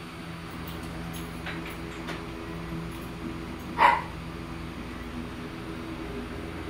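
Steady low electrical hum from a powered loudspeaker and amplifier setup, with a few faint clicks as the equipment is handled. A short, sharp yelp about four seconds in is the loudest sound.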